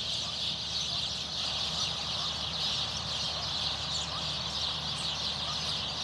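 A large flock of small birds chirping and chattering together in the trees, a dense, unbroken chorus of overlapping high calls, typical of birds gathering to roost at dusk.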